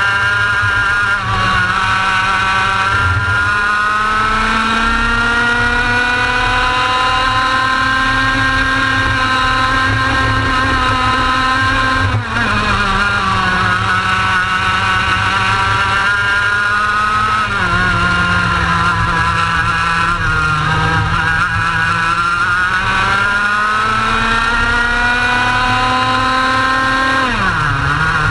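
Onboard sound of a racing kart's engine under power, its pitch climbing slowly along the straights and dropping sharply as the kart slows for corners: about twelve seconds in, again a few seconds later, and just before the end.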